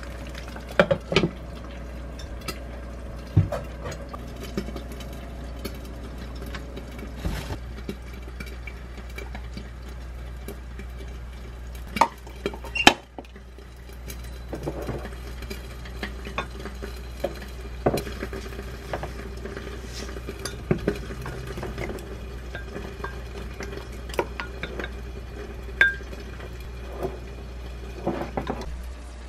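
Kitchen utensils clinking and knocking, then a wooden spoon stirring and scraping a seasoning sauce of chopped green onion and chili powder in a glass mug. The spoon knocks against the glass at scattered moments, over a steady low hum.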